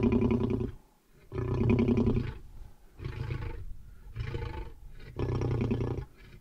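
A lion at bay growling and roaring at hunters in five deep calls with short gaps between, each up to about a second long; the first two and the last are loudest.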